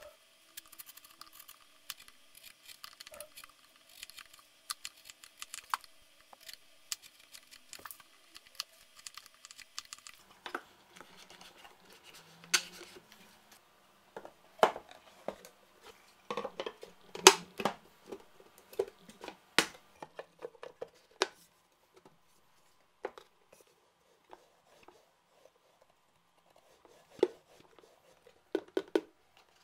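Chisel paring a plywood edge: light scraping with small ticks. From about ten seconds in, plywood panels knock and clatter irregularly as they are handled and fitted together, with a few sharp knocks near the end.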